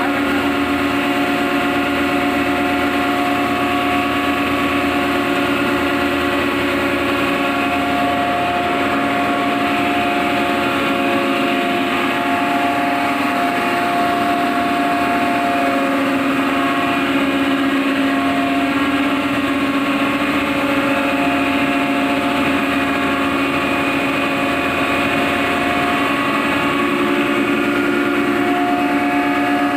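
Red chilli powder grinding plant running: the grinder, blower and cyclone machinery make a loud, steady mechanical drone with several steady hum tones as dried chillies are fed through.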